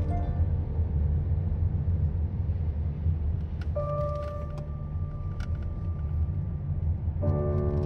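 Steady low rumble of a car's engine and tyres heard from inside the cabin while driving slowly. Faint background music sits on top: a held note comes in about halfway, and a fuller chord near the end.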